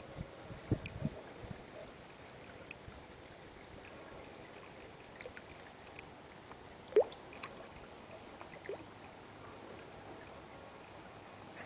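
Water in a small garden koi pond: a steady faint trickle with scattered drips and short rising plops, the loudest about seven seconds in. A few soft low thumps about a second in.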